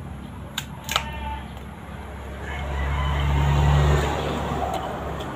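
Two crisp crunches of a bite into raw green mango about a second in, followed by chewing. Under it a low engine hum, as of a passing vehicle, swells to its loudest about four seconds in and fades.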